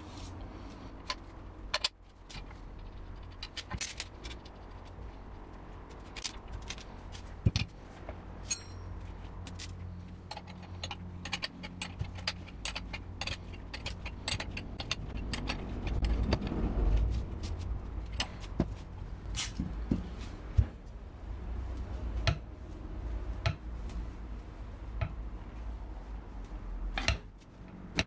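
Scattered metal clicks and clinks as the steel blades of a pair of loppers are fitted together and the pivot nut is tightened with an open-end wrench, over a low steady hum. A louder stretch of handling noise comes a little past halfway, and a sharper click near the end.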